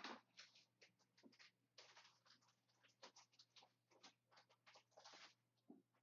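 Near silence with faint, irregular rustling and scratching sounds, several a second, over a low steady hum.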